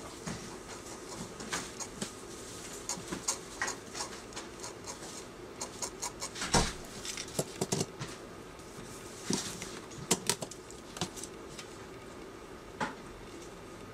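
Craft knife blade cutting and scraping screentone film on a manga page: a run of irregular light clicks and scratches, the loudest one about halfway through.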